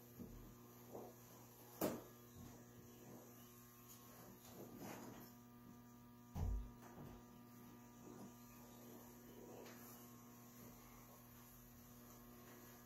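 Faint, steady electrical mains hum with a few small knocks over it. The loudest is a sharp click about two seconds in, and there is a low thump about halfway through.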